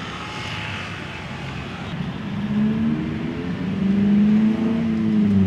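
A motor vehicle's engine passing close by, swelling from about two seconds in, its pitch rising and then falling, loudest near the end.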